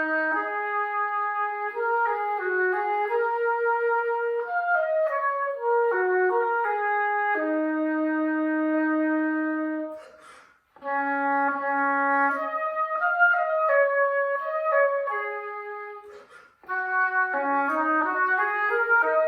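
Solo oboe playing an unaccompanied melody of moving and held notes, in three phrases separated by short breathing pauses about ten and sixteen seconds in.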